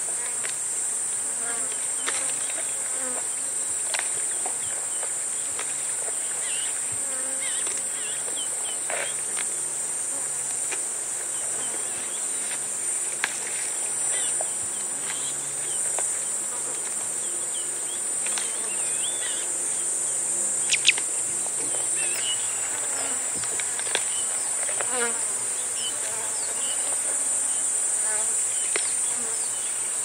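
Loud cicada chorus, a steady high-pitched drone, with flies buzzing close by and scattered bird chirps. Over it come small crackles and snaps of a giraffe feeding on acacia, with a couple of sharper snaps about two-thirds of the way through.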